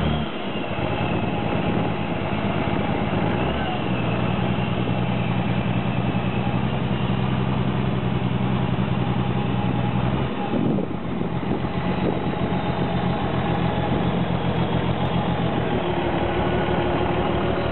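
Engine of an old, long-abandoned truck running steadily at idle after being revived. Its note shifts briefly about ten seconds in, then settles again.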